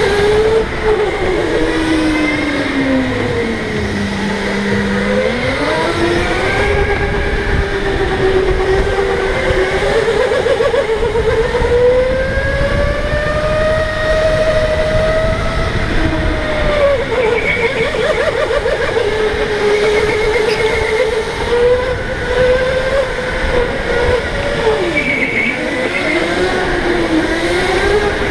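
Electric go-kart motor whining, its pitch rising and falling as the kart speeds up and slows through the corners, over a low rumble.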